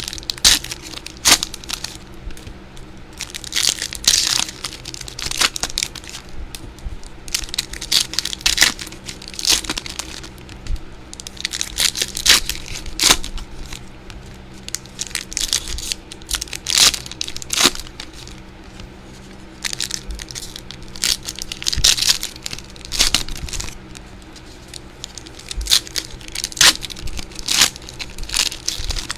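Trading card pack wrappers being torn open and crinkled, with repeated crackling bursts and sharp clicks as packs are ripped and cards handled.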